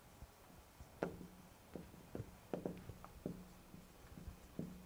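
Dry-erase marker writing on a whiteboard: a string of short, faint strokes and scrapes, a few a second, as words are written out.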